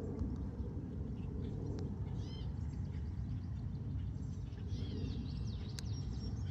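Small birds chirping in short, quick calls, once about two seconds in and again in a run near the end, over a steady low rushing noise.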